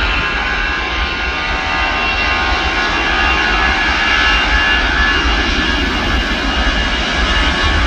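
Airbus A320's twin jet engines at takeoff thrust during the takeoff roll: a loud, steady rushing noise with a high whine over it.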